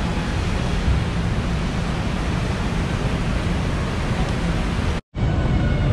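Steady hiss and low rumble of factory machinery and air noise, with no separate events, cutting out completely for a split second about five seconds in.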